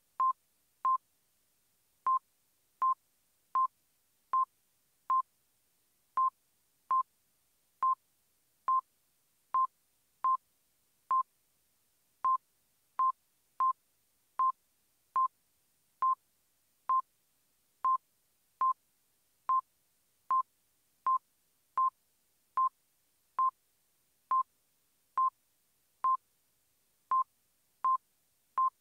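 Casio LK-78CD keyboard beeping once for each panel button pressed in its diagnostic console-switch test. The short beeps come at the same pitch, about one every three-quarters of a second, with a few brief gaps. Each beep confirms that a switch has registered as the display counter steps up.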